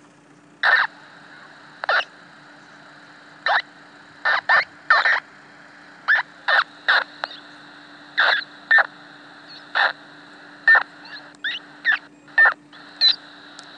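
Icom IC-R3 scanner receiving an unidentified radio signal: short chirping bursts, one or two a second at irregular spacing, over a steady low tone and faint hiss.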